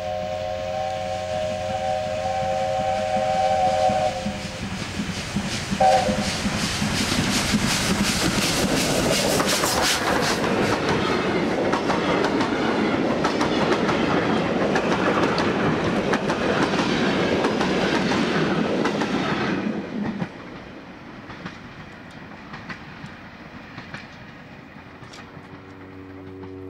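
A steam locomotive's whistle sounds several notes at once, held for about four seconds, with a short second blast about six seconds in. The engine then passes close with its coaches: loud exhaust and the clatter of wheels over rail joints. The sound cuts off sharply about twenty seconds in, leaving a quieter distant rumble.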